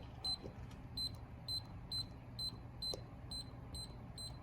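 Sowheel DK01 keypad deadbolt giving a short high beep at each key press, about ten in a row at roughly two a second, with faint button clicks. This is the master-code sequence being keyed in (top button twice, the master code, top button once) to enter programming mode.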